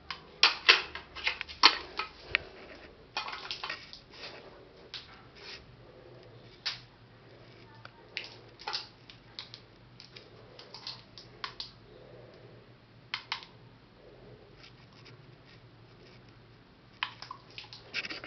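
Irregular short clicks and brief rustling noises, in clusters, loudest in the first two seconds and again near the end.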